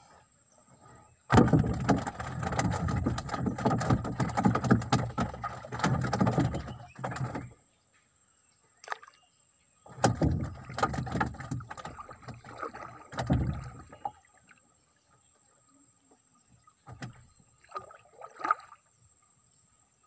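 Splashing water and wooden knocks as a paddle is worked in the water alongside a small wooden boat, in two long stretches with a quiet gap between them.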